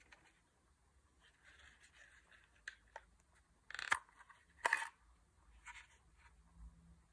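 Fixed-blade knife handled in and drawn from its moulded Kydex sheath. Soft handling rustle comes first, then about four seconds in two short, loud scraping clicks a little under a second apart as the blade is pulled past the sheath's retention, followed by a few faint ticks.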